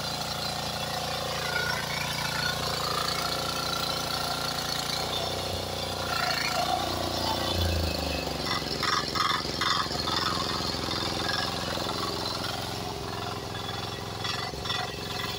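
Diesel power weeder engine running steadily while its rotary tines till the soil. About eight seconds in, the engine note drops as it slows.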